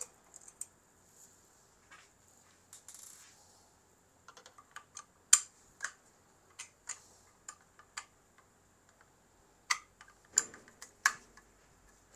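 Irregular small clicks and ticks of a screwdriver working the printhead retaining screws on an Epson L805 printer. The loudest click comes about five seconds in, and a quick cluster of clicks comes near the end.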